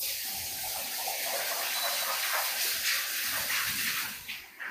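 Compressed-air blow gun with a long nozzle blowing a steady hiss of air over a small machined part. It cuts off near the end.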